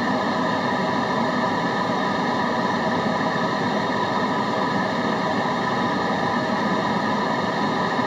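Continuous white-noise track for studying: an even, unbroken hiss with a few faint steady tones running through it, never changing in level.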